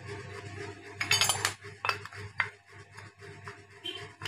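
Light metallic clinks and taps from a removed motorcycle water pump and its metal parts being handled: a quick cluster about a second in, then a few single clicks.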